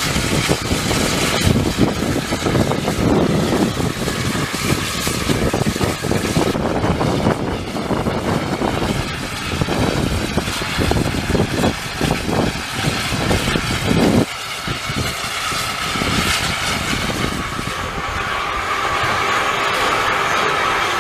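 Narrow-gauge 4-6-0 steam locomotive No. 12 working under steam, its exhaust beating in quick, uneven chuffs over a dense hiss of escaping steam. From about two-thirds of the way through, the sound changes suddenly to a steadier hiss.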